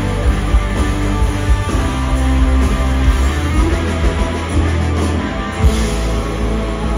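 Live rock band with electric guitars, drums and strings playing loudly. Steady drum hits for about the first two seconds, then the band holds a long chord, with one sharp hit about five and a half seconds in.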